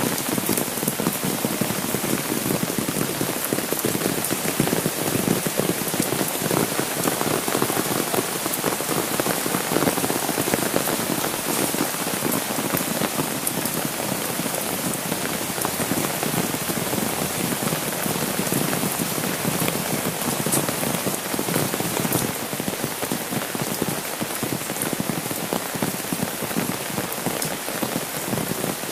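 Steady rain falling on an umbrella overhead and on a wet asphalt road: a dense, even hiss of countless small drop ticks.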